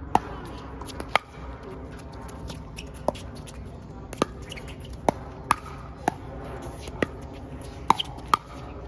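Pickleball rally: about ten sharp pops, in an irregular rhythm, of paddles hitting the plastic ball and the ball bouncing on the hard court.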